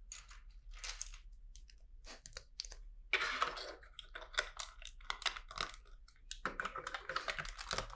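Plastic LEGO pieces being handled and pressed into place, a run of irregular rustles and small clicks.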